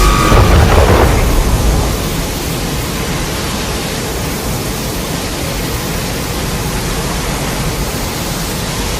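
A loud blast in the first second or two settles into a steady, loud rushing noise like static, with no pitch or rhythm.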